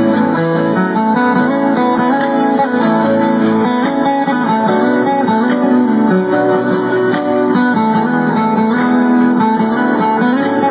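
Background music: a guitar-led instrumental passage with plucked and strummed chords and no singing.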